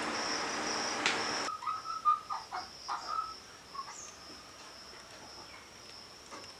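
A few short bird chirps over a steady high-pitched insect-like drone. A steady hiss stops abruptly about a second and a half in.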